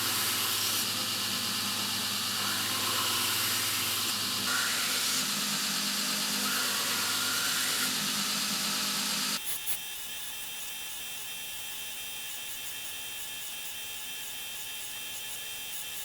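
Belt grinder running steadily with a low hum and hiss. About nine seconds in it drops sharply to a quieter, steady hiss.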